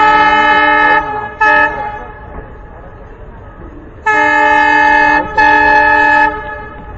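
WDM-3A diesel locomotive's horn sounding a series of blasts from the head of the train: a long blast ending about a second in, a short toot just after, then two more long blasts near the end with a brief break between them. The train's running noise fills the gaps.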